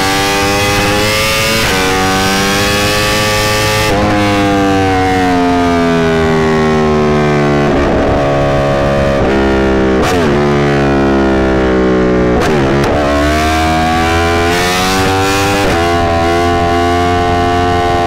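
Yamaha R1's crossplane inline-four engine under way on the road, its pitch climbing under throttle and dropping sharply at upshifts about two and four seconds in. In the middle the pitch falls slowly as the bike eases off, broken by a few quick rev changes, then it climbs again with another upshift near the end.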